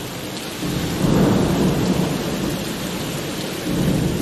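Steady rain with thunder: two low rumbles, one swelling up about a second in and another near the end.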